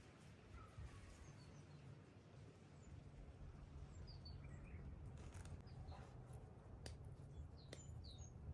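Faint, scattered bird chirps over a low steady rumble, with a few sharp clicks in the second half.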